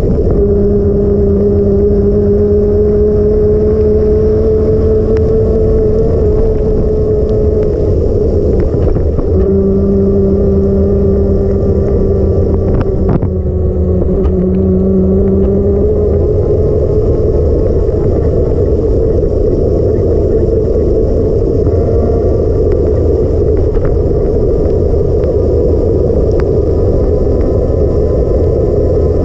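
Wind rushing over the microphone and tyre noise of a bicycle riding through rain on wet pavement, a steady loud rumble. A steady whine runs through the first half, breaks off briefly, then stops about sixteen seconds in.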